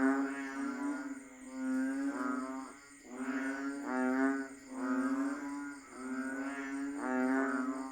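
Banded bullfrogs (Kaloula pulchra) calling in chorus: low, droning calls, one after another about once a second and overlapping. Faint high insect buzzing runs underneath.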